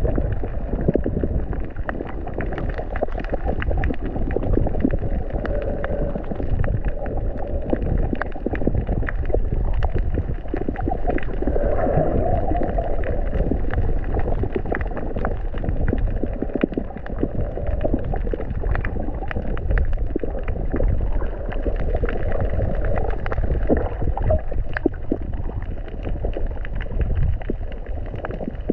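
Muffled underwater noise picked up through a camera housing: a low rush of water and gurgling, with a steady crackle of fine clicks throughout.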